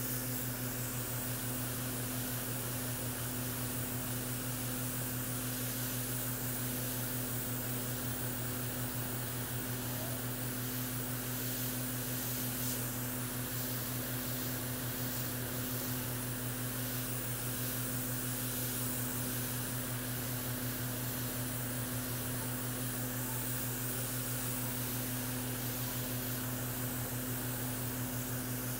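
Small airbrush compressor running with a steady hum, under the even hiss of air and paint spraying from a gravity-feed airbrush.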